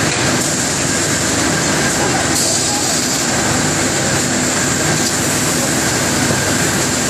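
Steady loud industrial noise of a glassworks floor, from its glass furnaces and overhead ventilation ducts, with a constant high whine over it.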